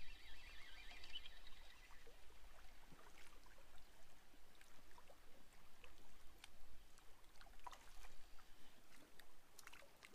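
Fishing reel being wound in, a whirring whine that stops about two seconds in; after that, faint lapping water and scattered small clicks.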